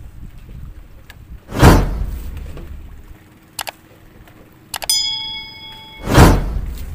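Two heavy thuds on a wooden boat's deck, about four and a half seconds apart, each dying away over about a second. Between them a light click and a short metallic ding that rings for about a second.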